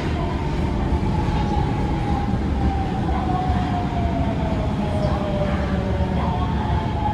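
Osaka Metro 22 series subway train with GTO-VVVF traction equipment running along the track: a steady low rumble with a whine that slowly falls in pitch.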